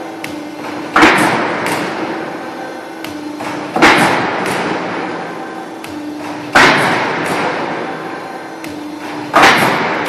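Hydraulic crimping press stamping corrugated steel roof sheet, four strokes about three seconds apart. Each stroke is a sharp bang followed by the sheet metal ringing and fading over a couple of seconds, with a steady hum between strokes.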